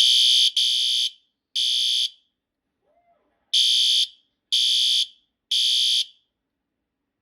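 System Sensor P2RK fire alarm horn strobe sounding its electronic horn in the temporal-3 evacuation pattern: a high, harsh tone in groups of three half-second beeps, with a pause of about a second and a half between groups. Two full groups are heard. Though set to low, it is very loud.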